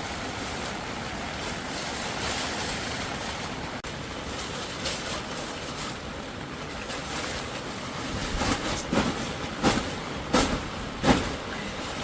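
Heavy rain falling steadily on a tent, an even hiss. From about eight seconds in, five or six short knocks and rustles of something being handled come through over it.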